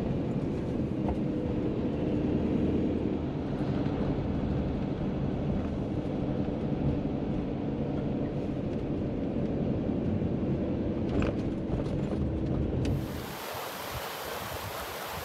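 Motorhome driving, heard inside the cab: a steady low engine and road rumble. About 13 seconds in it cuts abruptly to a steady rushing hiss.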